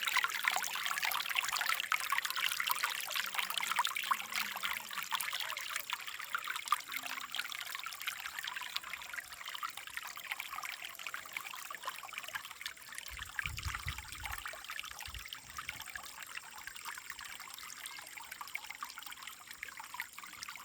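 Water trickling and running steadily, like a small stream over stones, slowly getting quieter, with a short low rumble about two-thirds of the way through.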